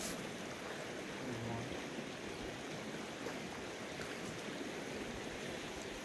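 Steady rushing of a flowing trout stream.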